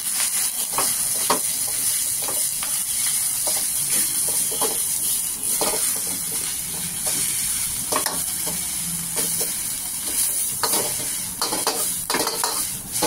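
Rice and leafy greens sizzling in a hot wok while a metal ladle stirs them, scraping and knocking against the wok at irregular intervals over a steady frying hiss.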